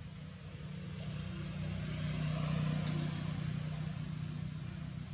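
A motor vehicle driving past, its sound swelling to a peak about halfway through and then fading, over a steady low hum.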